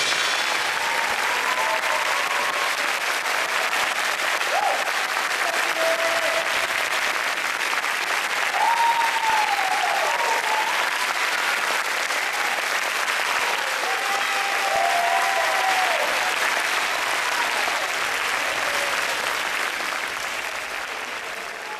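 Large theatre audience applauding steadily, with a few scattered whoops that rise and fall in pitch. The applause fades out near the end.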